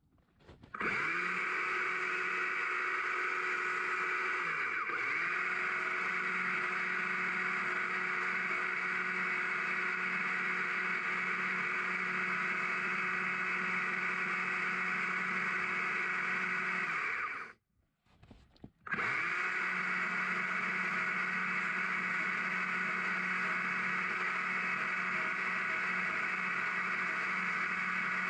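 Corded electric Stihl chainsaw running at a steady, even pitch while carving a small branch log. It spins up quickly about a second in and slows and picks up again around five seconds. It stops for about a second and a half past the middle, then spins back up and runs on.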